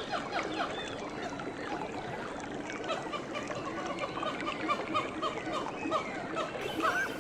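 Birds chirping over a steady rush of running water; from about three seconds in, one short call repeats roughly twice a second.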